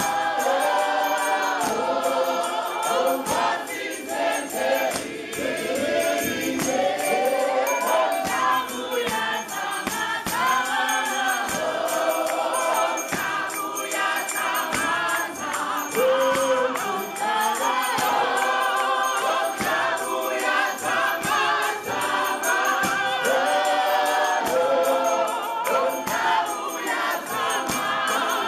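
A congregation singing a church song together in chorus, with hand-clapping.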